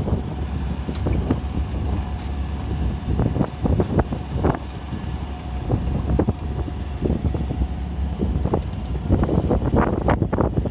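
Wind buffeting the microphone through a moving vehicle's open window, over the vehicle's steady low rumble as it drives. Frequent short knocks and gusts grow denser near the end.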